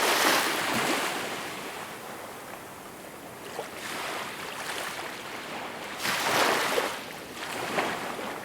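Surf on a beach: a hiss of water that swells and ebbs, with a wave breaking right at the start and another about six seconds in.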